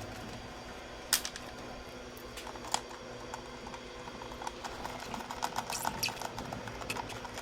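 Small sharp metallic clicks and taps of an Allen key and bolts being worked loose and handled at a motorcycle's tail, with a run of quick little clicks near the middle, over a steady low hum.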